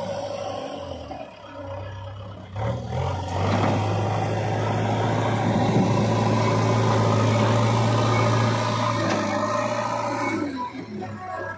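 JCB 3DX backhoe loader's diesel engine working under load as the machine pushes and spreads soil with its front bucket. It eases off about one to two seconds in, revs up sharply around three seconds in, holds a steady high note, and drops back near the end.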